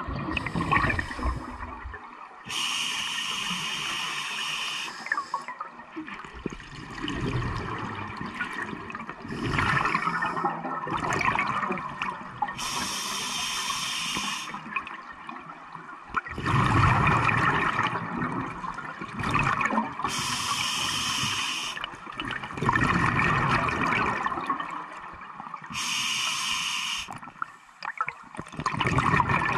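A scuba diver breathing through a regulator underwater, several breaths in turn: a hiss of air drawn from the demand valve, then a gurgling rush of exhaled bubbles. It is heard through the camera's underwater housing.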